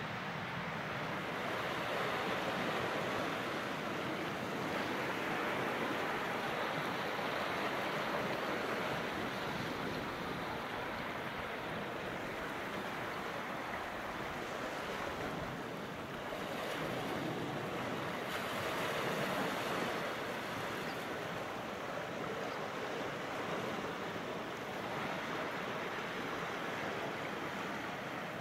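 Sea waves breaking on the shore, a steady rushing hiss that swells and eases slowly every few seconds.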